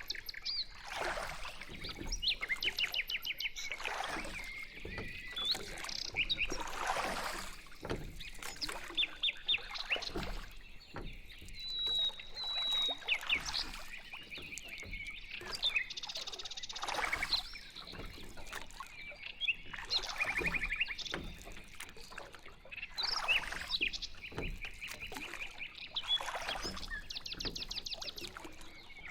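Many small birds chirping and trilling in quick repeated notes, over repeated swishing and splashing of water from a pedal boat's paddles.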